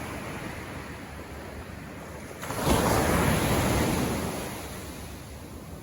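Ocean surf on the beach: a wave breaks about two and a half seconds in and washes out over the next two seconds, over a steady wash of water and wind on the microphone.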